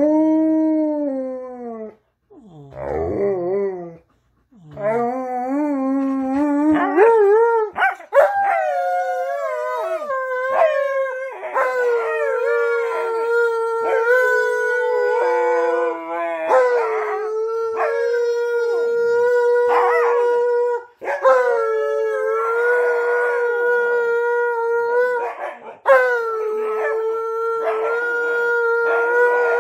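Alaskan malamute howling, set off by singing: a string of long, drawn-out howls. They slide and waver in pitch for the first several seconds, then settle into longer, steadier notes broken by short pauses.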